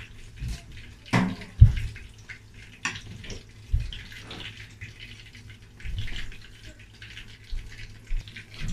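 Pancake frying in a non-stick pan, a steady sizzle, with several sharp knocks and clatters from a plate and squeeze bottle being handled, the loudest about a second and a half in.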